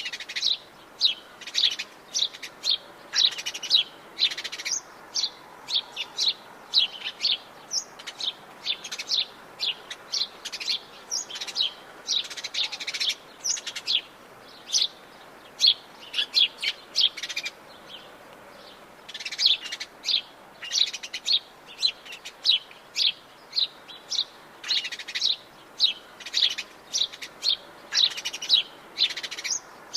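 Forest birds chirping and calling in quick, short notes, many in a row, with a brief lull about two-thirds of the way through.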